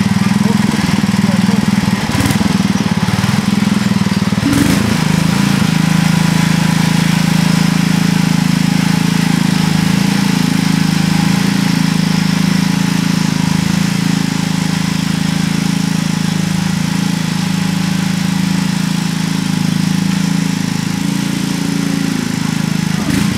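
Sears ST 16 garden tractor's engine running steadily while pulling a plow through garden soil, with a couple of short clunks in the first five seconds.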